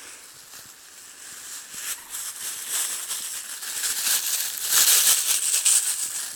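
Dense rustling and crackling close to the microphone, growing louder and at its loudest about five seconds in.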